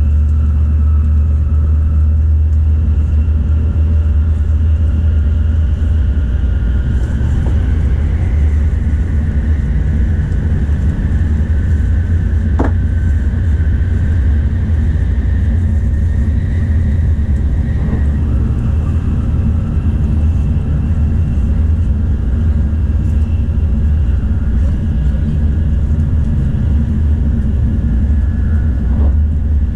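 Tokaido Shinkansen train running, heard inside the passenger car: a steady low rumble with faint whining tones above it and a brief click about halfway.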